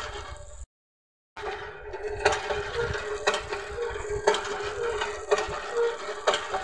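Metal hand pump worked by an elephant's trunk, its handle knocking at each stroke about once a second, with water splashing from the spout onto the concrete base. The sound cuts out briefly about a second in.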